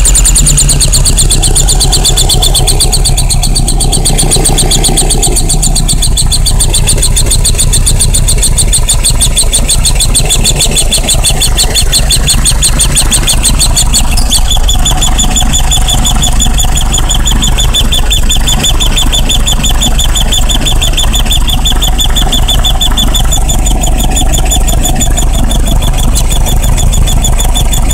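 A VW 1303 RS Beetle's Oettinger TSV 2110 engine running steadily, with a strange high-pitched, rapidly pulsing whine over the engine sound that gets stronger about halfway through. The noise appeared after new intake manifolds were fitted, and the owner wonders whether the air-flow meter (MAF) is behind it.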